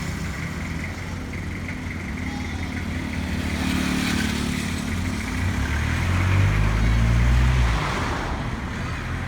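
A motor vehicle's engine running, growing louder for a couple of seconds about six seconds in, then dropping back.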